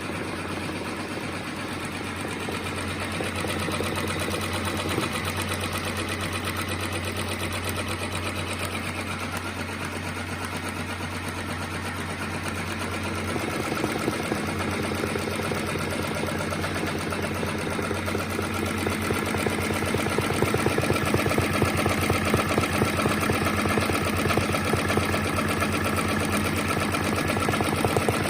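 Brother sewing machine running, its needle stitching in a fast, even rhythm. A steady low hum is heard in the first half, and the stitching gets louder over the second half.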